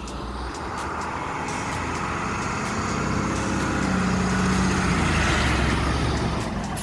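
A motor vehicle passing by: engine tone and tyre noise build to a peak about five seconds in, then fade.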